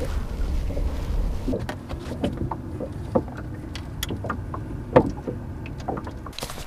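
A steady low rumble for the first second and a half, then scattered light knocks and clicks of fly-fishing gear being handled in a small boat, as the angler stands working his fly line; the sharpest knock comes about five seconds in.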